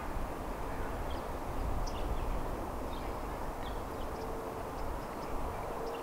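Outdoor background: a steady low rumble and hiss with scattered faint, short high chirps from distant birds.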